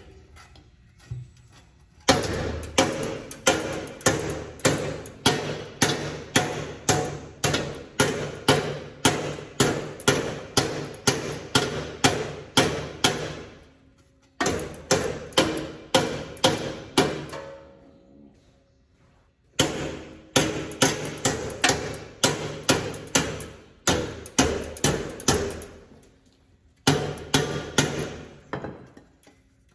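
Hammer blows on a metal part, about two a second, in four runs with short pauses between them; each blow rings briefly.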